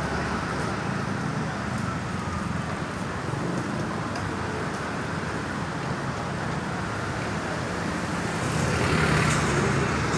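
Road traffic noise: a steady mix of passing vehicles, with one going by louder near the end.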